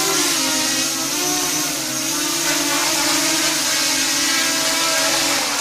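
OFM Swift TR260 tilt-rotor racing quadcopter hovering, its four brushless motors and propellers giving a steady, loud whine whose pitch wavers slightly as the throttle is worked.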